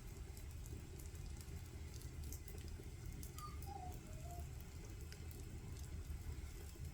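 Wood fire crackling in a traditional Korean agungi firebox: faint scattered sharp ticks over a steady low rumble. A brief squeaky chirp sounds a little past halfway.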